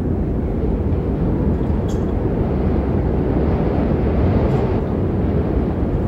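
Strong wind blowing across the microphone: a steady low rumble of rushing air.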